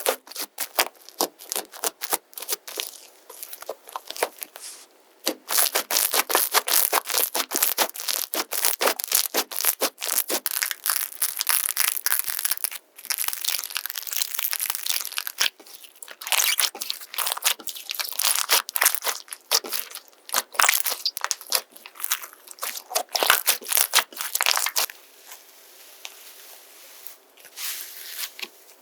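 Slime being poked and squeezed by hand: dense runs of crackling, popping clicks that come in bouts, going quieter near the end.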